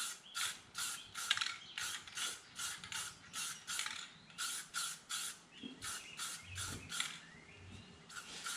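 Aerosol spray paint can being shaken, its mixing ball rattling in short, even strokes about two to three times a second.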